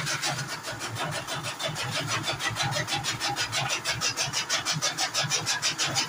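Motor-driven chaff cutter running, its flywheel blades chopping green fodder grass with a fast, even rhythm of cuts.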